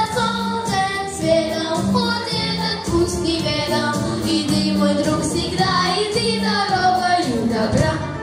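Young girls singing a song together over instrumental accompaniment.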